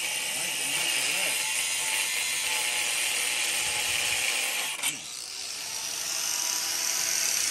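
Ryobi angle grinder's cutting disc grinding through a steel wheel stud held in a vise, a steady harsh grinding. About five seconds in there is a sharp click as the cut goes through. The grinder then runs on with a higher hiss.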